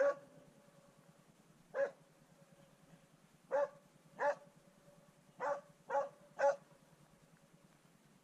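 Norwegian elkhound barking at bay on a wild boar: seven single barks at uneven gaps, the last three in quick succession, then stopping about seven seconds in.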